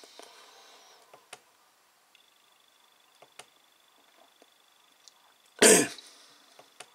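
A man coughs once, short and sharp, about five and a half seconds in. Around it are a few faint clicks and a faint, steady high whine.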